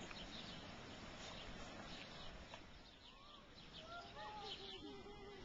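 Faint outdoor background with small birds chirping. A cluster of short chirps that bend up and down comes in the last second or so.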